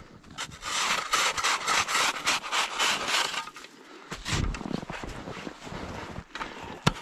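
Packed snow blocks being scraped and rubbed, a quick run of rough strokes for about three seconds, then quieter scuffing with a dull thump about four and a half seconds in.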